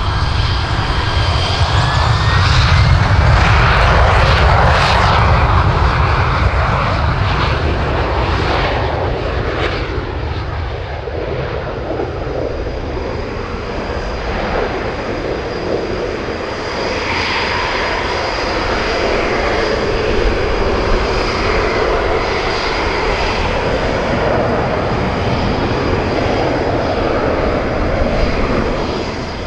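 McDonnell Douglas TAV-8B Harrier II's Rolls-Royce Pegasus turbofan at full power for takeoff and a low departure: a loud jet roar with a steady high whine, a rising whine in the first few seconds as it spools up, loudest a few seconds in, then running on as the jet climbs away.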